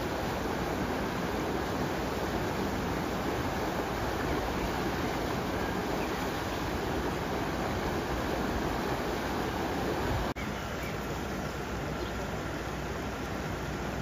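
Muddy floodwater rushing down a street as a torrent, a steady roar of water. About ten seconds in it breaks off into a slightly quieter steady rush of water.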